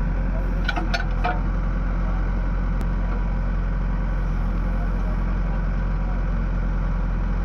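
Heavy engine running steadily at idle, with a few light metallic clinks about a second in.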